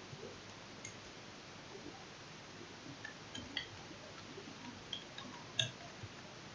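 Faint, scattered clicks of computer keyboard keys being typed, over a low steady hiss; the sharpest click comes near the end.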